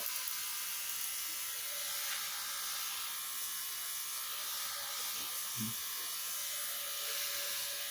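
Steady buzzing hum with an even hiss, with one brief soft knock about five and a half seconds in.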